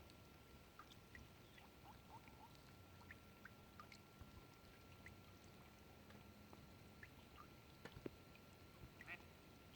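Near silence: faint water ambience with many small scattered ticks and drips, a couple of them a little louder late on.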